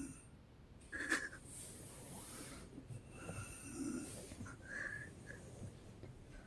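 A woman snoring in her sleep: a sudden loud snore about a second in, then long hissing breaths with a short whistling tone later on.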